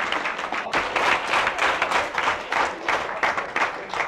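A crowd applauding, many hands clapping together; the applause eases slightly near the end.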